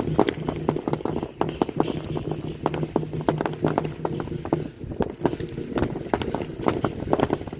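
Firecrackers going off inside a large burning pile of joss paper: rapid, irregular sharp pops, several a second, over the steady low rumble of the fire.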